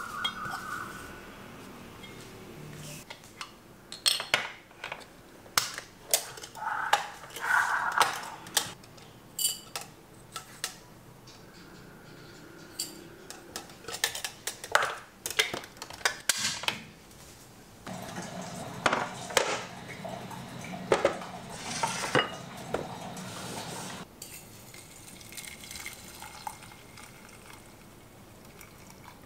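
Dishes and metal utensils clinking and clattering in irregular knocks and scrapes. A steady low hum joins in for several seconds after the middle.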